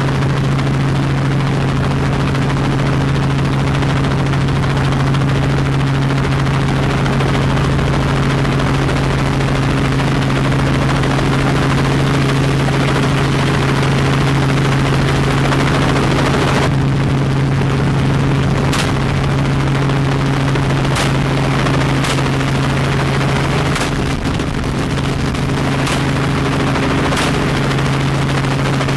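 Helicopter drone from the rotor and engine, close and steady. In the second half, about seven rifle shots crack out singly, each one to two seconds apart.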